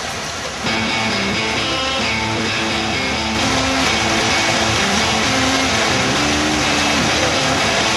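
Rock music in which a guitar plays a melody of stepping notes over a dense, steady wash of sound.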